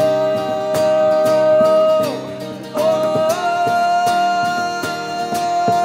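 A male vocalist holding two long sung 'oh' notes, the second a little higher, over strummed acoustic guitar.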